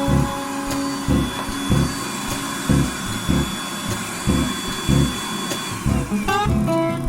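Makita 18V cordless dust extractor, fitted with a cyclone separator, running with a steady whine and rushing air. About six seconds in it is switched off and the whine falls away. Background music with a steady beat plays underneath.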